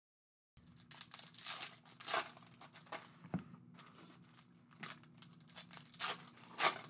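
Crinkly trading card packaging being torn open and handled: irregular crackling and tearing strokes over a faint low hum, after a brief dead-silent gap at the start.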